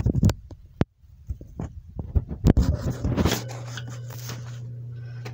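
Handling noise from the camera being moved: rustles and several sharp knocks over the first three seconds, then a steady low hum.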